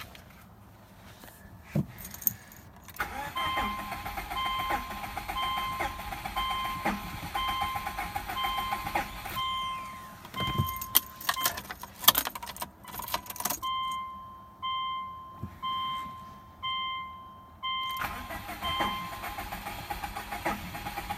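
Car's warning chime beeping steadily, about one and a half beeps a second, from a few seconds in. Around the middle, keys jangle and sharp clicks and knocks come as the key is worked, and then the chime carries on.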